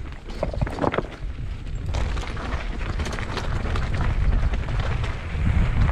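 Wind buffeting the microphone over a low rumble while riding a trail, getting louder about two seconds in, with a few short clattering knocks near the start.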